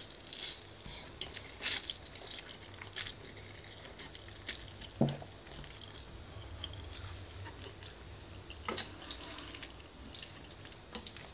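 Quiet chewing of spaghetti bolognese, with scattered soft mouth clicks and smacks, a sharper one about two seconds in.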